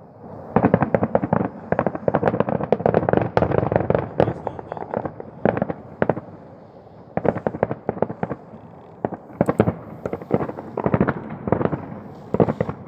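Fireworks salute going off: rapid volleys of sharp bangs and crackles, in several bursts separated by short pauses.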